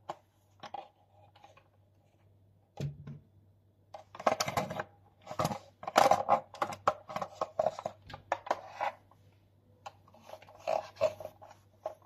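A long screwdriver wrapped in a cleaning towel scraping and rubbing inside the plastic brush-bar housing of a Dyson vacuum's floor head, in irregular scratchy strokes. The strokes come thickest between about four and nine seconds in and pick up again near the end.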